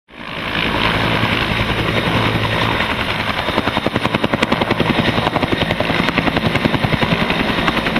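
Helicopter hovering low over a river while its suspended bucket scoops water, the engine and rotor running loud and steady with a fast rhythmic rotor beat of several pulses a second that becomes more pronounced about halfway through.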